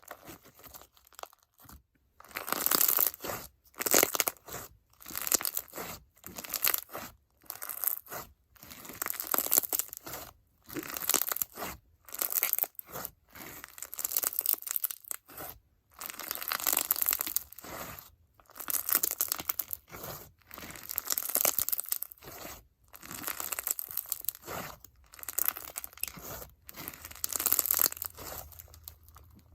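Icee-jelly crunch slime full of foam beads and bingsu beads being squeezed and pressed by hand, giving repeated crackling, popping bursts about once a second as the beads burst and the puffed-up slime squelches.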